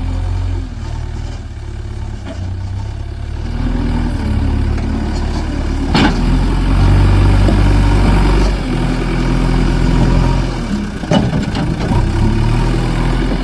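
JCB 3DX backhoe loader's diesel engine running under changing load, its pitch rising and falling several times as the machine works. Two sharp knocks stand out, one about halfway through and one near the end.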